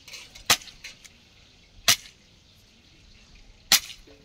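Machete chopping into a bamboo pole: three sharp, cracking strikes, roughly one and a half to two seconds apart.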